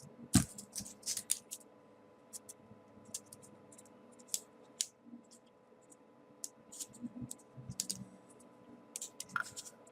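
Light, scattered clicks and rustles of small folded paper pieces being handled and pushed into place on a 3D origami model, with a soft knock about half a second in.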